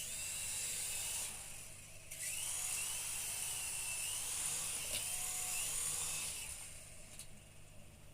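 Small electric remote-controlled helicopter's motor and rotor whining at a high pitch, the pitch wavering up and down with the throttle. It runs briefly at the start, then again for longer from about two seconds in, dying away near the end.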